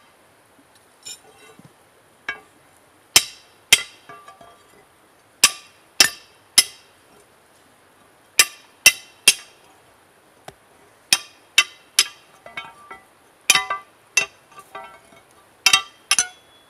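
Hammer blows on a long steel bar resting on a boulder anvil: sharp metallic clinks, each with a short ring, falling in quick groups of two or three with pauses between.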